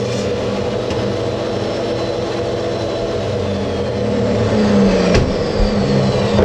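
DeWalt jobsite table saw running steadily, bevel-ripping a long strip of UHMW plastic. There is a single sharp click a little after five seconds in.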